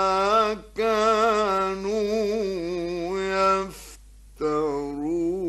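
A man reciting the Quran in the melodic mujawwad style, drawing out the words in long, ornamented, wavering tones. He pauses for a breath about two-thirds of the way through, then takes up the melody again.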